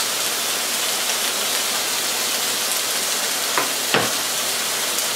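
Chicken breast, Brussels sprouts and diced red onion sizzling in a sauté pan with a steady hiss, the onion just added. Two short knocks sound about three and a half and four seconds in.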